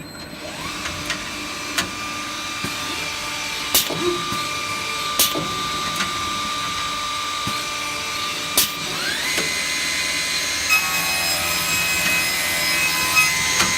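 Skipper V31 five-sided CNC drilling machine running: a steady spindle whine that comes up just after the start and shifts up to a higher pitch about nine seconds in, with several sharp clacks from the machine's moving parts along the way.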